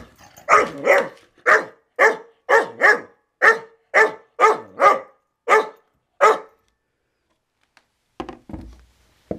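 Five-month-old puppy, which the owner believes is a Foxhound–Beagle mix, barking at a skateboard: about a dozen barks at roughly two a second, stopping about six and a half seconds in.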